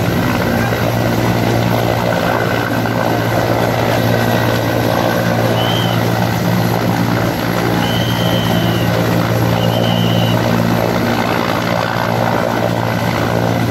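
Mi-17 military transport helicopter hovering low, its main rotor and turbine engines running in a steady, unbroken drone.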